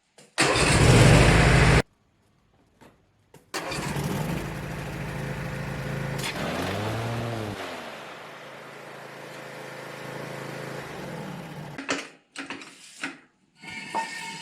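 Zero-turn riding mower engine starting and running: a short loud burst about half a second in, then the engine runs, its pitch rising and falling once, before it settles lower and stops near the end.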